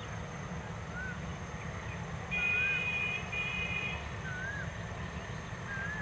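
Outdoor ambience: a steady low rumble with four short rising-and-falling whistles spread through it, and a loud high steady tone in two parts, a long one then a shorter one, about two seconds in.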